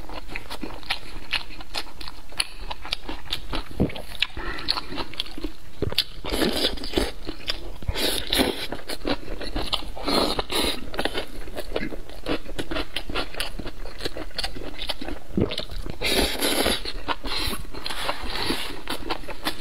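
Close-miked chewing of saucy spicy noodles, with wet smacking and crackling mouth sounds, broken by several slurps of noodles, one about ten seconds in.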